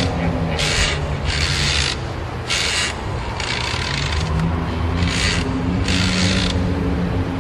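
Trailer sound effects: a rhythmic series of short hissing swooshes, roughly one a second, over a low droning hum whose pitch shifts; the swooshes stop shortly before the end.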